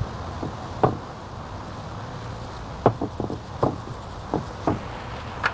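Several light clicks and taps from hands handling small parts and tools at an engine's valve cover, spaced irregularly over a steady background hum.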